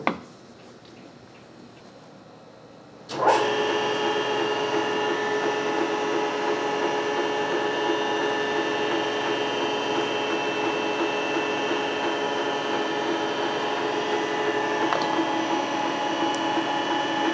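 Vertical milling machine motor switched on about three seconds in, then running steadily with a constant whine.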